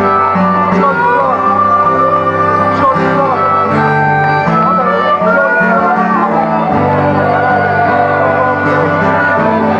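Acoustic band playing an instrumental intro: strummed guitar and bass notes under a higher melody line that slides and bends in pitch.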